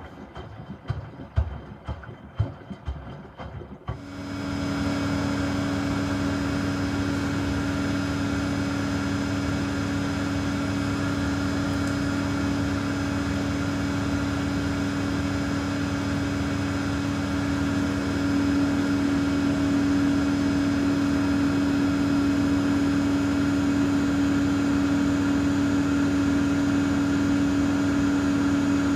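Miele W2573 front-loading washing machine: for the first few seconds the drum tumbles the wet load in the rinse with irregular knocks. Then the final spin starts suddenly, a steady motor-and-drum hum with a fixed whine, getting a little louder about two-thirds of the way through.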